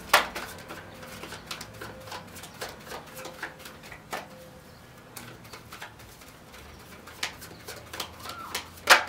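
A deck of tarot cards being shuffled by hand. The cards make irregular light snaps and clicks as they are slid and slapped against one another, with one sharper snap just after the start and another near the end.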